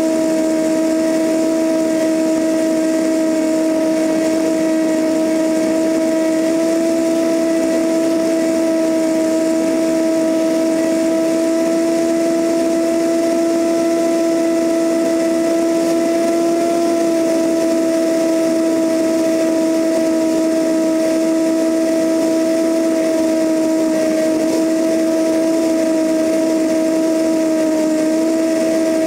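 Cessna 172N single-engine light aircraft in steady cruise: the four-cylinder Lycoming engine and propeller drone on a strong, unchanging hum, with rushing airflow noise over the camera mounted outside under the wing.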